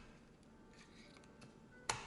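A single sharp click near the end, over faint light ticking and faint background music.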